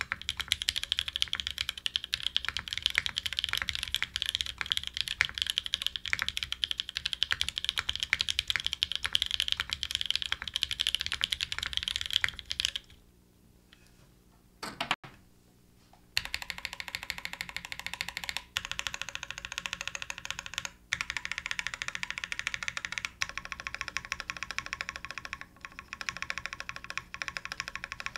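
Fast typing on a Heejin 60% custom mechanical keyboard with lubed Novelkeys Nolives linear switches in an aluminum plate and GMK doubleshot ABS keycaps: a dense, steady clatter of keystrokes. It stops for about three seconds around the middle, then starts again with a few brief pauses.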